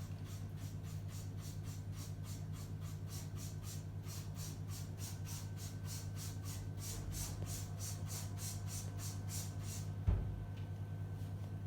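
A cat licking in a steady rhythm of about four soft strokes a second, over a low steady hum. A single thump comes near the end.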